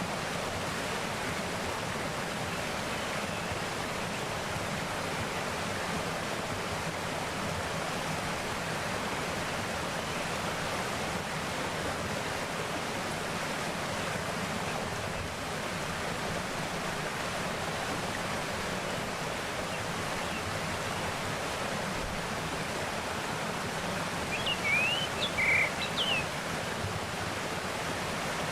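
Mountain valley stream flowing steadily with an even rush of water. Near the end a bird gives a quick cluster of short, high chirps.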